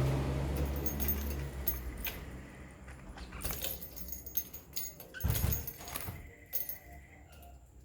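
Pet budgerigars giving short chirps among quick sharp clicks and metallic clinks, with a low hum fading out over the first second or so.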